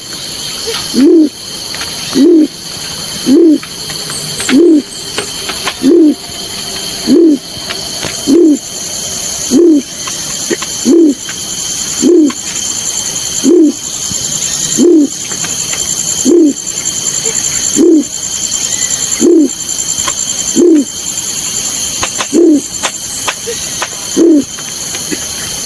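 Balorinay bird call used as a trapping lure: a short, low hooting coo repeated about every second and a half, around eighteen times, with a steady high-pitched hiss behind it.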